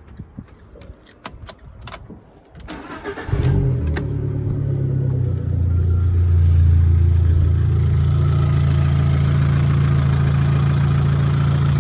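Abarth 500's 1.4 T-Jet turbocharged four-cylinder petrol engine being started after its silicone turbo intake pipe was replaced. A few sharp clicks come first, then the engine fires about three seconds in and settles into a steady idle.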